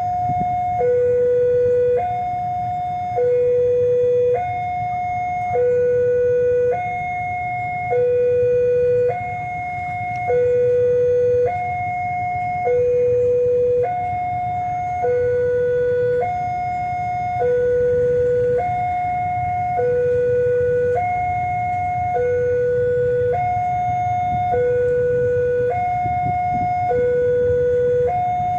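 Railway level-crossing warning alarm sounding its electronic two-tone signal, alternating between a higher and a lower tone about every second and a quarter, warning that a train is approaching. A steady low rumble runs underneath.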